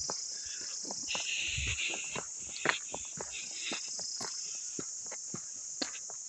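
Steady high-pitched insect chorus in woodland, with irregular footsteps crunching on a dirt path; one step is louder, a little under three seconds in.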